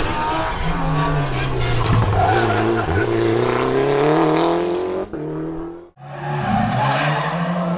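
Rally car engine revving hard, its pitch climbing and dropping as it works through the gears. The sound cuts out abruptly just before six seconds in, then comes back with the engine running again.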